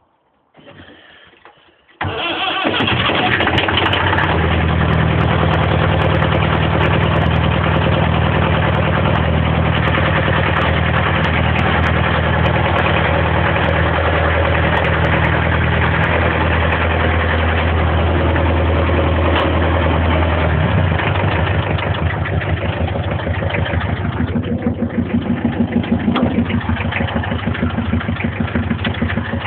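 International 434 tractor engine cold-starting, helped by ether starting fluid: it catches suddenly about two seconds in and then runs steadily, turning uneven and pulsing over the last several seconds.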